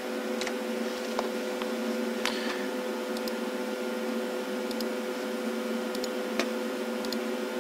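Steady electrical hum of lab equipment, with a few faint, irregular clicks as a value is keyed in on the oscilloscope's touchscreen keypad.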